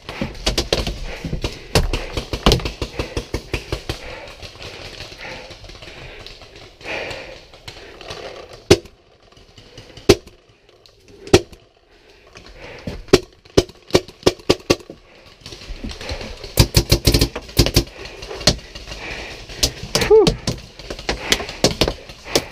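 Paintball markers firing in a game: quick strings of several shots a second in the first couple of seconds and again about two thirds of the way through, with scattered single shots between.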